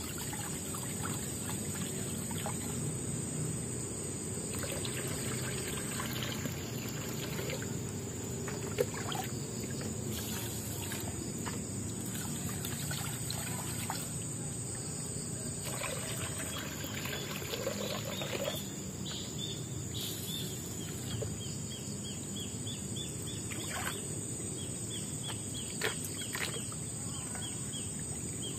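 Water trickling and splashing in a shallow rocky stream as a cooking pot and a small plastic scoop are dipped, filled and poured, with light clinks and two sharper knocks of the pot. A steady high whine sounds above it.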